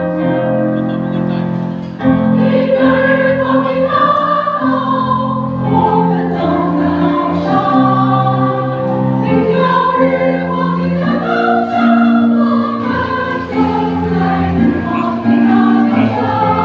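A choir singing a slow melody in several parts over sustained low accompanying notes. The voices swell in about two seconds in.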